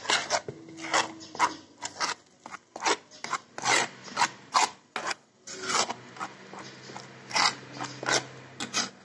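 A metal spoon stirring and scraping a thick spice paste against a plastic bowl, in short rasping strokes about two or three a second, some louder than others.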